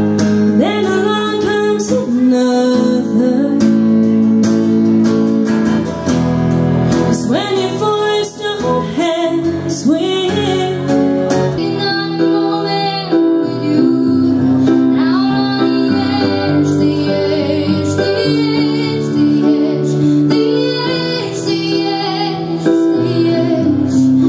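A woman singing live with a strummed acoustic guitar. Partway through it changes to a woman singing a slow song while playing an electronic keyboard.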